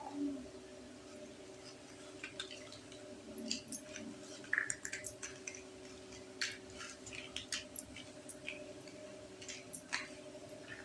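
Small plastic toy kitchen pieces being handled and set in place: scattered light clicks and taps over a steady low hum.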